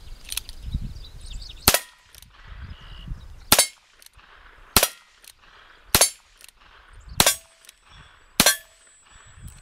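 Six evenly paced shots from a Ruger Single Six .22 single-action revolver, about one every 1.2 seconds, the first about a second and a half in. Some are followed by a short metallic ring from steel targets being hit.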